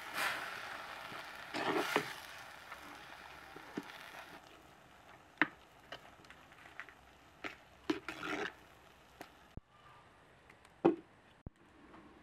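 Wooden spoon stirring wet red lentils in a clay pot: scraping against the pot and the shifting of the grains, then scattered clicks and scrapes as the stirring slows. A single sharp knock near the end is the loudest sound.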